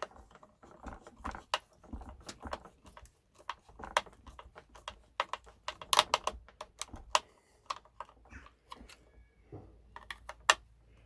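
Irregular small clicks, taps and rattles of hands working plastic and metal: stripped solar cable ends being pushed into a charge controller's terminals and handled into place.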